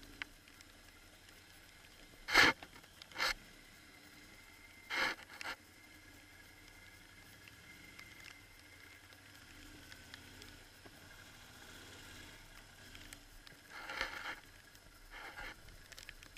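Quad bike (ATV) heard faintly and steadily, with a few short, loud scraping noises: four between about two and five and a half seconds in, and two more near the end.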